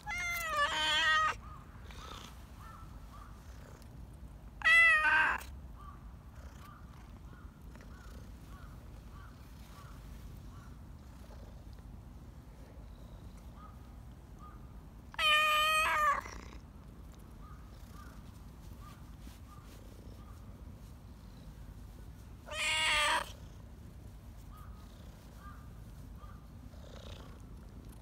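Tabby-and-white cat meowing four times, several seconds apart, and purring steadily in between while it is stroked under the chin.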